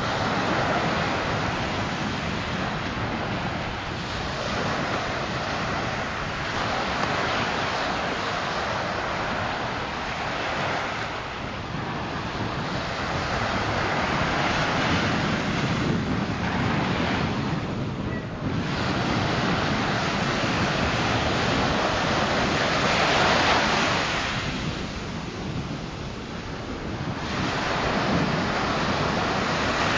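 Surf breaking and washing up the beach, swelling and easing wave by wave, with wind buffeting the microphone.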